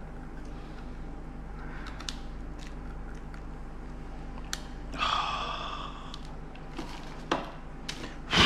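Cooked mud crab shell being worked apart by hand: a few light clicks and a short squeaky scrape of shell about five seconds in, then a sharp knock right at the end.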